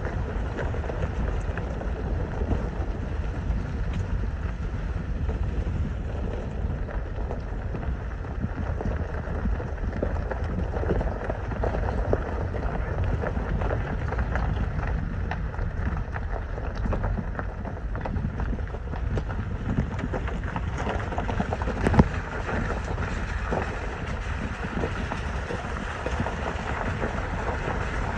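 Vehicle driving over a rough dirt back road: a steady low rumble of engine and tyres with many small rattles and bumps, and one sharp knock about three quarters of the way through.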